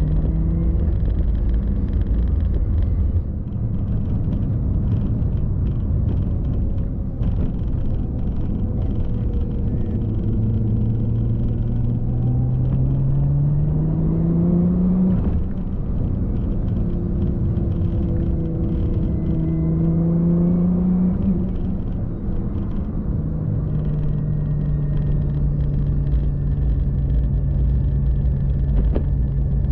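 Car driving on the road with engine and road rumble: the engine note climbs twice under acceleration, dropping back at each gear change, then holds steady while cruising.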